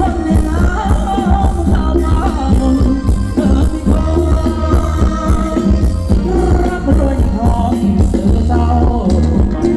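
Thai luk thung dance music from a live band, played loud over the stage speakers, with a steady beat and a held melody line.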